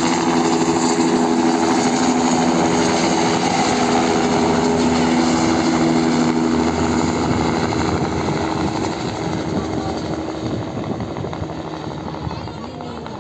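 Light two-bladed helicopter lifting off and flying away: a steady engine and rotor sound with a hum of several tones that fades out about halfway through, the whole sound growing fainter over the second half as it departs.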